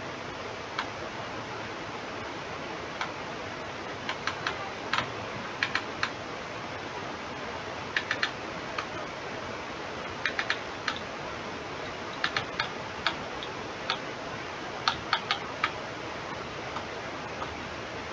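Irregular clusters of sharp little clicks from a computer mouse as the page is scrolled, over a steady hiss.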